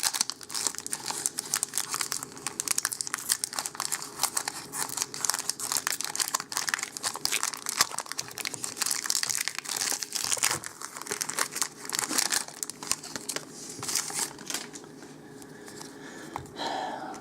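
Foil wrapper of a Magic: The Gathering booster pack crinkling as it is torn open, a dense run of crackles that thins out near the end.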